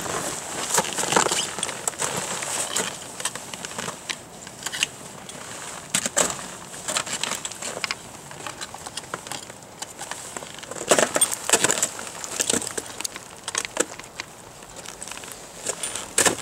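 Ice axes and crampon front points striking into waterfall ice: irregular chopping, crunching impacts, with a cluster of strikes about two-thirds of the way through.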